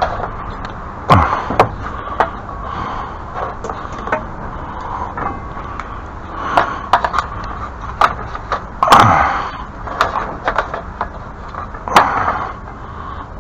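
Irregular knocks, clacks and thumps of things being handled and moved about, with a few louder thumps: one about a second in, the loudest and slightly drawn out near nine seconds, and another near twelve seconds.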